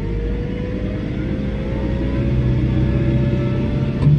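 John Deere 4066R compact tractor's diesel engine and hydrostatic drive running as the tractor picks up speed, heard from inside the cab, with a whine that rises slowly in pitch. A short click near the end.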